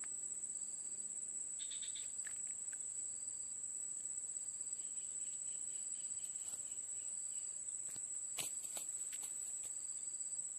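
Insect, likely a cricket, trilling without a break at a steady high pitch. A few short clicks come about eight and a half seconds in.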